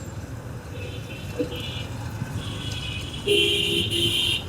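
Low, steady rumble of idling traffic, with a vehicle horn honking twice in quick succession near the end, each blast about half a second long. Fainter horns sound earlier.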